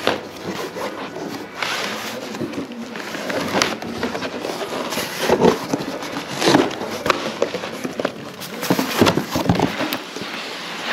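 Cardboard boxes being handled and unpacked: irregular rustling and scraping of cardboard with short knocks and thuds.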